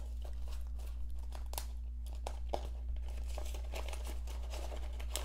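Paper banknotes rustling and crinkling as a stack of bills is shuffled and slid into a clear plastic binder pouch, with small scattered ticks over a steady low hum.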